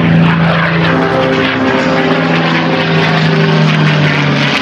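P-51 Mustang's V-12 piston engine droning steadily in flight, its pitch sliding lower near the end as the fighter draws away.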